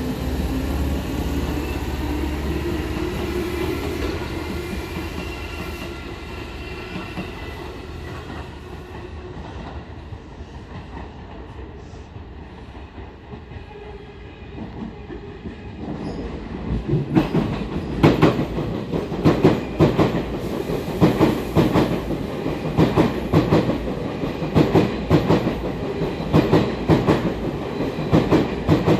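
Electric commuter train running through a station: in the first half a motor whine rises in pitch and fades away. After a lull, a passing train's wheels clack over the rail joints in a steady rhythm of about two beats a second, loud and close, from just past the middle to the end.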